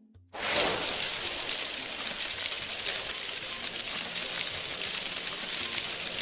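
A sparkle sound effect for a title animation: a steady, dense hiss, bright and high, that starts suddenly about a third of a second in.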